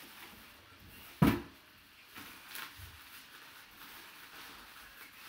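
Handling of a black drawstring bag, with faint rustling and a single sharp knock about a second in.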